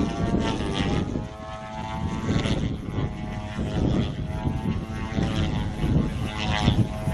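Radio-controlled model airplane's propeller and motor, the pitch rising and falling again and again as the throttle is worked through aerobatic manoeuvres. Strong wind buffets the microphone with a fluttering low rumble.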